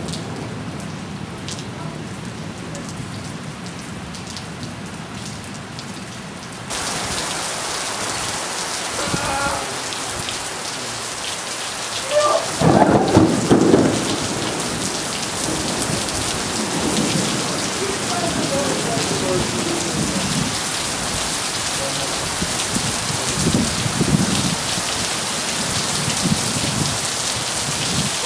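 Heavy thunderstorm rain pouring steadily, heard from under a covered shelter. The rain turns suddenly louder about seven seconds in. A loud clap and rumble of thunder comes about twelve to fourteen seconds in, followed by fainter rumbles.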